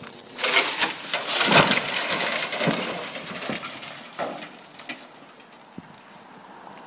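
A felled tree coming down: a sudden rush of breaking branches and rustling leaves starts about half a second in and lasts some three seconds, then a few single cracks follow.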